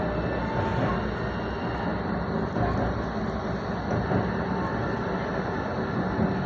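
A GT8VU tram running along its route, heard from inside the car: a steady rumble of wheels on rails and running gear, with a few faint short tones above it.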